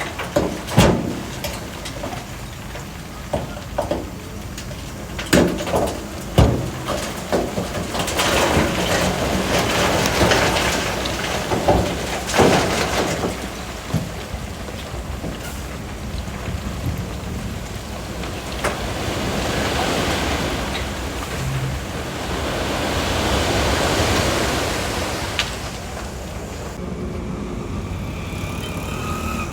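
Loose rock clattering and rumbling as heavy earthmoving machinery pushes and dumps it, with many sharp knocks of stones in the first half and long swells of rumbling rock later, over running diesel engines.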